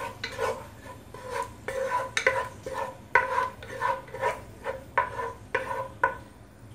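Wooden spatula stirring and scraping onion, green chillies and cumin frying in oil in a nonstick pan, in quick repeated strokes about two a second, with a light sizzle of frying; the strokes stop shortly before the end.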